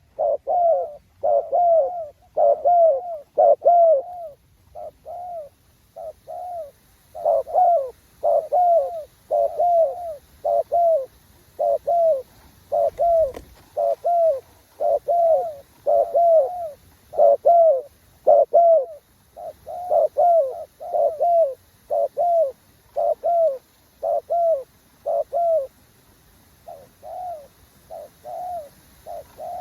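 Spotted dove cooing: a long run of short, arched coos, about three every two seconds with brief pauses, loud and close.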